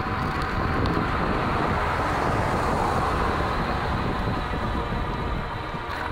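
Wind buffeting the microphone of a moving bicycle, with a car overtaking: its tyre and engine noise swells to a peak a couple of seconds in and then fades as it pulls away. A faint steady whine runs underneath, from the geared electric hub motor pulling the bike uphill.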